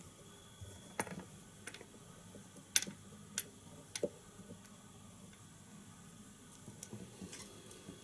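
A few small, sharp clicks and taps from hands working at a fly-tying vise and its tools, the loudest two close together about three seconds in.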